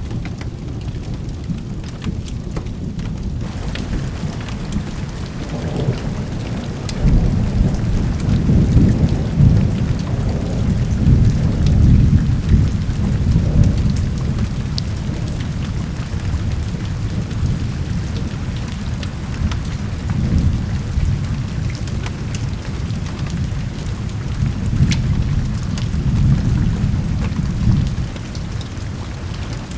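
Steady rain with long rolls of thunder rumbling underneath, the heaviest about seven to fourteen seconds in, with further rolls around twenty seconds and shortly before the end.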